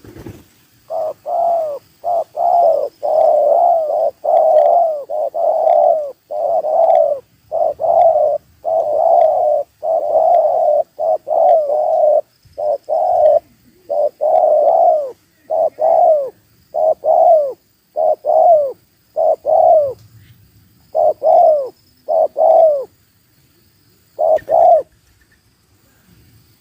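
A spotted dove cooing over and over, a long series of coos that come close together at first and more spaced out toward the end.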